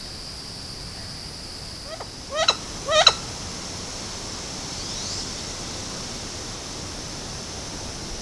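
Female wood duck giving three short, sharply rising calls about half a second apart, about two to three seconds in, over a steady high insect drone.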